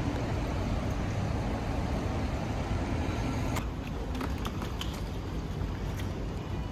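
City street traffic: a steady rumble of passing cars. A few short, sharp clicks in the second half.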